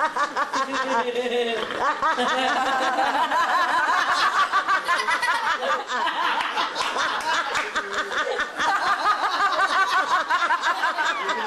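Several family members laughing together, their voices overlapping in quick, pulsing laughs.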